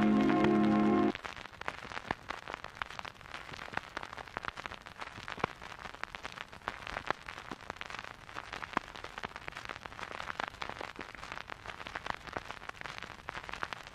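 A sustained music chord cuts off about a second in. After that comes dense, irregular crackling and popping surface noise, the hiss and clicks of an old, worn film soundtrack.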